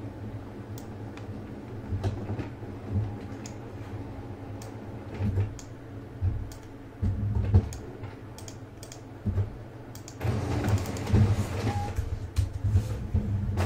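Computer keyboard typing: scattered keystrokes and clicks over a low steady hum. About ten seconds in, a denser rushing noise sets in with quicker clicks.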